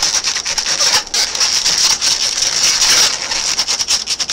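Latex twisting balloons squeaking and rubbing against each other as hands twist and shape them, a dense run of short squeaks and scratches.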